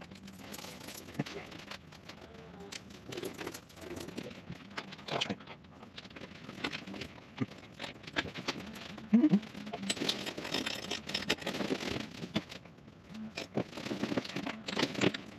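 Crinkly fabric rustling and crumpling close to the microphone, with scattered clicks and light knocks as someone moves about on an aluminium boat deck. There is a short pitched sound about nine seconds in.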